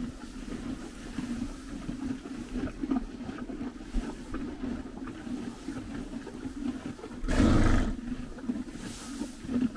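Horses chewing hay close up: a steady, irregular crunching and rustling of dry hay as they pull and grind it at a metal feeder. About seven seconds in, one horse gives a loud snort lasting under a second.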